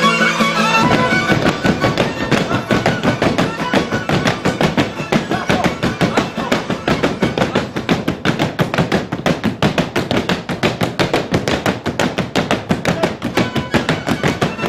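Oaș folk dance music: a fiddle line breaks off about a second in, and fast, even rhythmic beats, about five a second, carry on with music under them.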